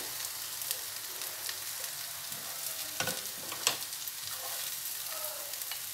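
Okra stir-fry with onions still sizzling steadily in a hot nonstick wok just off the flame. A spatula scrapes and taps against the pan a few times as the okra is stirred and scooped.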